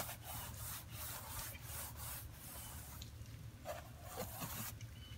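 Stiff-bristled brush scrubbing mildew off wet vinyl siding in quick back-and-forth strokes, about three a second.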